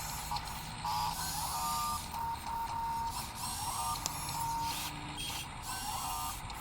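Small electric motors of radio-controlled models whining in short stop-start bursts, the pitch stepping up and down as they start, change speed and stop.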